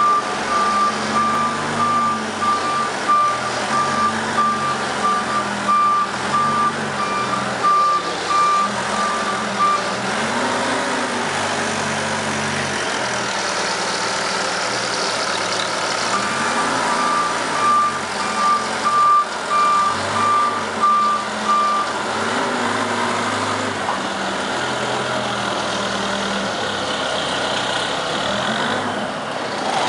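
Manitou telehandler's diesel engine running and revving up and down as the machine manoeuvres. A reversing alarm beeps in a steady repeating tone for about the first ten seconds, then again for about six seconds past the middle.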